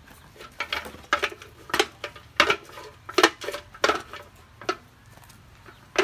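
Aluminium cooking pot knocked and clanked repeatedly by a small child's hands, a series of sharp metallic clanks roughly one to two a second that stop about a second before the end.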